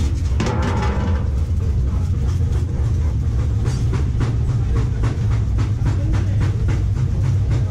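Metalworking shop machinery running with a steady low hum, with a rapid, fairly regular run of sharp metallic clicks and knocks over it.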